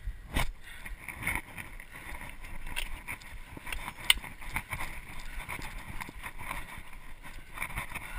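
Mountain bike rolling over a dirt singletrack: a steady rush of knobby tyres on dirt with wind on the microphone, and the frame, chain and camera mount rattling and knocking over bumps, the sharpest knock a little after four seconds in.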